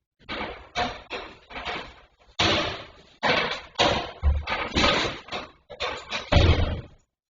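Repeated heavy banging, about fifteen irregular blows over some seven seconds, each ringing briefly: a neighbour's constant knocking of the kind residents complain of.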